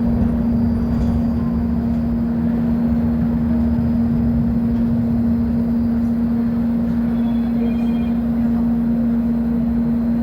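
Volvo B10M bus's diesel engine running steadily, a constant hum over a low rumble with no change in speed.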